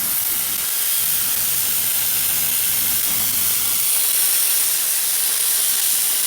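Plasma torch of a Crossfire CNC plasma table cutting metal: a loud, steady hiss of the arc and its air jet.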